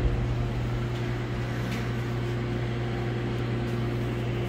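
Steady mechanical hum, like a fan or ventilation unit running: a constant low drone with a steady higher tone over it, and a few faint light ticks.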